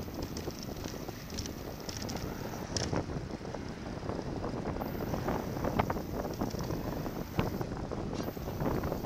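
Wind buffeting the microphone of a bicycle-mounted camera while riding, over a steady road rumble with scattered knocks and rattles from the bike on the pavement.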